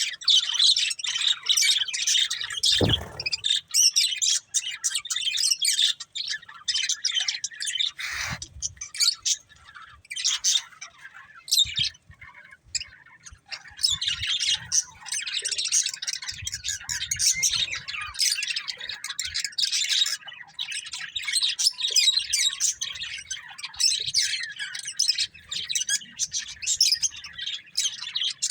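Budgerigars chattering and chirping in quick, continuous warbling, thinning out for a few seconds near the middle. There is a short low thump about three seconds in and another near eight seconds.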